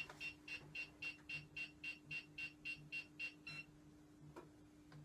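Small battery-powered electronic gadget beeping: a run of short, high-pitched beeps, about four a second, that stops about three and a half seconds in.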